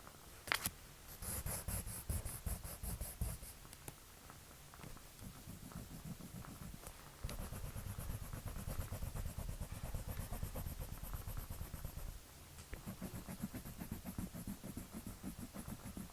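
Drawing strokes scratching rapidly on paper, in three spells of quick back-and-forth shading, with a single sharp click about half a second in.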